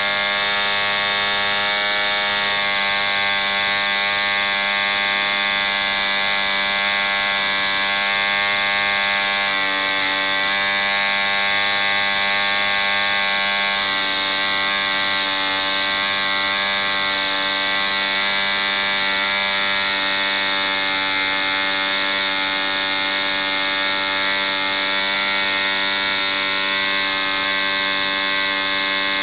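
ED Hunter 3.46 cc model diesel engine running flat out, swinging an 11x6 wooden propeller at about 6000 rpm: one steady, even-pitched drone.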